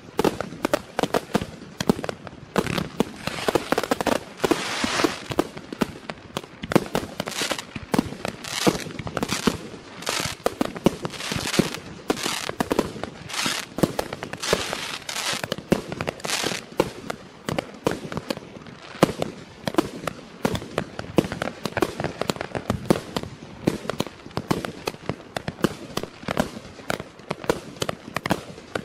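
200-shot, 30 mm consumer fireworks cake (Klasek C2003BP/C Best Price) firing a continuous volley: sharp shots and bursts follow one another several times a second without a break. A hiss runs between the shots through the first half.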